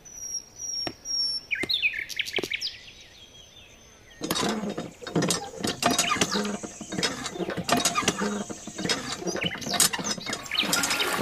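A few short bird chirps, then from about four seconds in, rapid, irregular clicking and rattling of a miniature DIY hand pump as its handle is worked up and down by hand.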